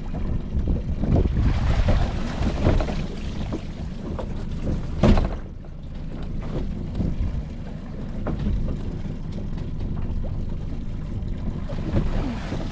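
Wind buffeting the microphone on a small fishing boat at sea, with a single sharp knock about five seconds in.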